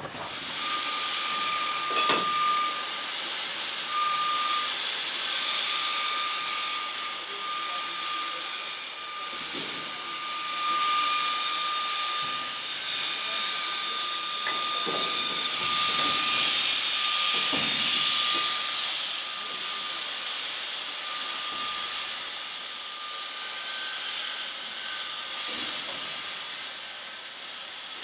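Steam locomotive letting off steam, a steady hiss with a high whistling note running through it that breaks off now and then. A few metallic clanks sound through it.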